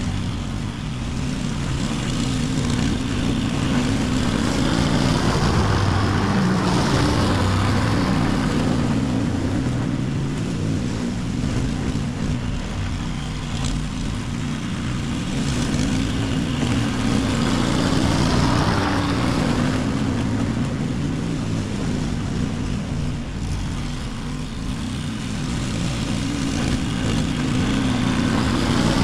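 Petrol walk-behind lawn mower engine running steadily while cutting grass, growing louder and fainter in slow swells as the mower is pushed up and down the lawn.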